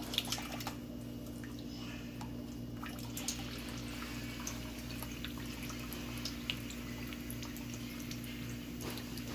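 Weak trickle of water from an opened shutoff valve under a sink, dripping and splashing faintly: the very low flow feeding a refrigerator's water line. A steady low hum runs underneath.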